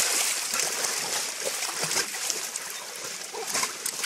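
Shallow muddy water splashing and sloshing steadily as bulldogs struggle with a hog in it.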